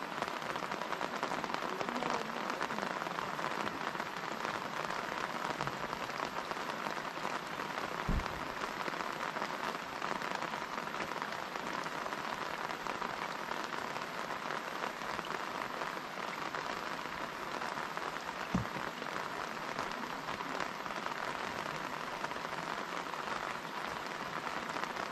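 Steady rain falling on pond water, a dense, even hiss. Two brief low thumps come about 8 and 18 seconds in.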